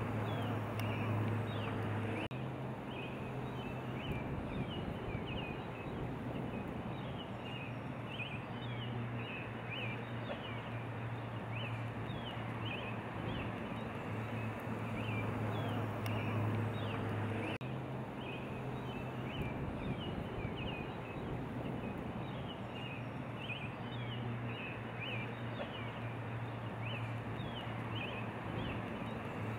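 Small birds chirping over and over, short high falling notes several times a second, over a steady rushing background noise and a low hum. The background shifts abruptly about two seconds in and again around seventeen seconds.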